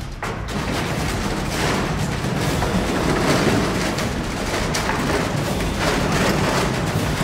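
Cinematic soundtrack music with heavy, repeated percussive booms and hits.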